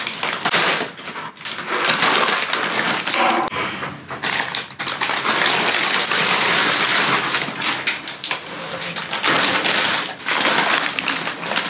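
Plastic bags and snack-chip packaging rustling and crinkling as trash is rummaged through by hand, a dense, continuous crackle with a few short lulls.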